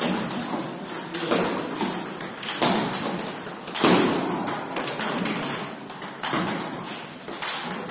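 Table tennis rally: the ball clicking sharply off the paddles and bouncing on the table in a quick, irregular run of hits.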